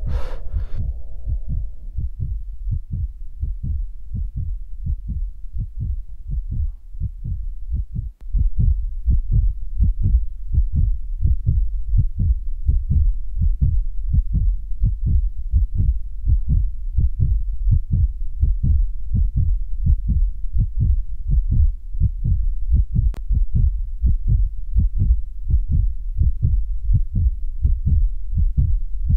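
A steady, evenly repeating low thumping pulse, like an amplified heartbeat, with a short break about eight seconds in. A louder sound from just before fades out in the first second or two.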